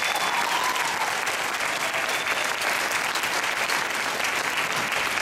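An audience applauding, a steady crowd of hand claps.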